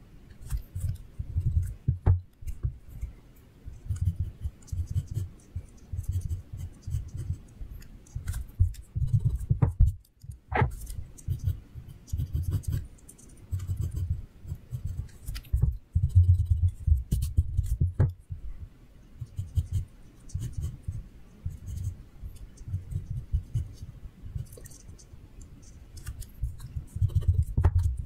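Pencil sketching on paper in short, irregular strokes, with a few sharp clicks in between.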